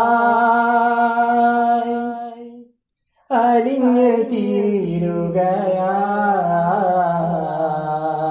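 A man sings a Malayalam devotional song into a microphone with long, held, ornamented vowel notes. One phrase fades out, there is a brief silence, and a second sustained phrase begins sharply about three seconds in.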